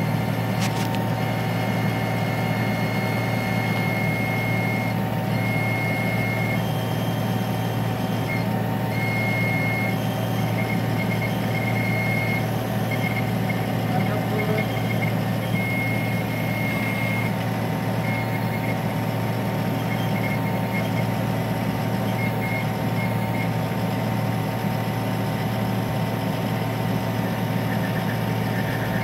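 Kubota U25 mini excavator's diesel engine running steadily under load, driving the hydraulic drive head that screws a helical pier into the ground. An intermittent high-pitched beeping tone comes and goes irregularly over the first two-thirds.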